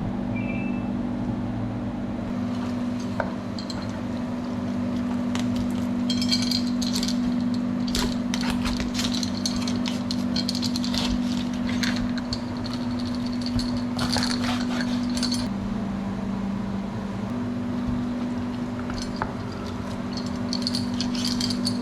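Clinks, knocks and rattles of metal utensils and dishes being handled, coming in small clusters, over a steady low hum.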